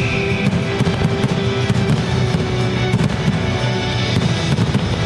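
Loud fireworks display, many sharp bangs and crackles going off throughout, over the show's accompanying music.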